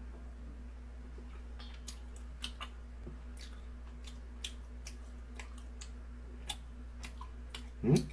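Scattered light clicks and taps, a few a second at most and irregular, over a steady low hum; a brief voice sound comes just before the end.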